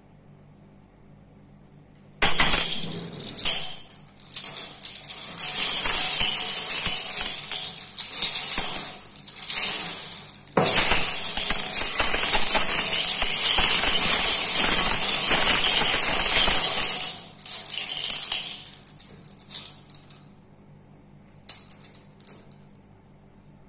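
Glass marbles rattling and clinking against each other and a glass bowl as a hand stirs them around, in loud spells starting suddenly about two seconds in, then dying away to a few scattered clinks near the end.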